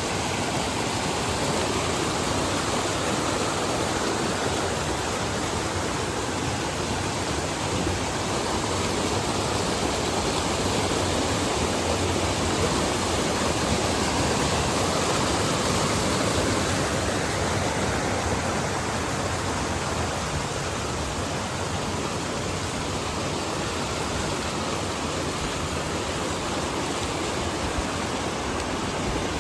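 Steady rush of falling or flowing water, an even roar with no breaks.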